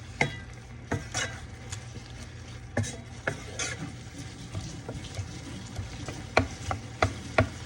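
A utensil stirring food in a small skillet, clicking and knocking against the pan at irregular moments, the sharpest taps near the end, over a steady low sizzle.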